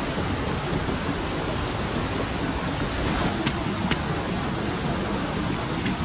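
Steady rushing noise of water, even and unbroken, with a couple of faint ticks a little past the middle.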